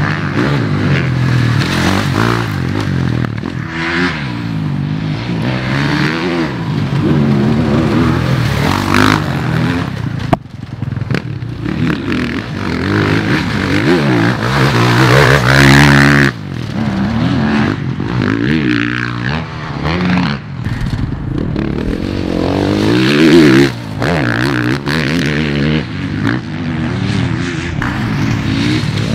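Motocross bike engines revving hard and falling back as the bikes accelerate out of turns and shift through the gears, in a string of passes that cut off suddenly between shots.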